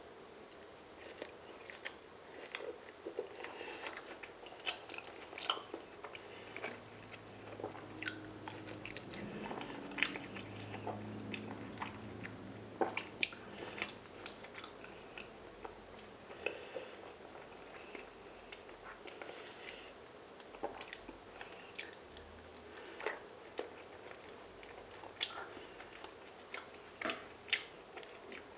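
Close-miked wet chewing of raw salmon and shrimp, with frequent sharp mouth clicks and smacks.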